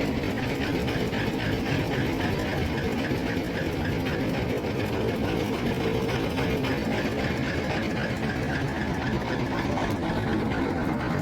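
Engine of a river-crossing boat running steadily, with a fast even chugging beat.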